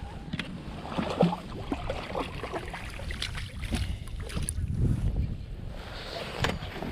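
Wind buffeting the microphone in a low rumble, with scattered small clicks and knocks from gear being handled on a kayak.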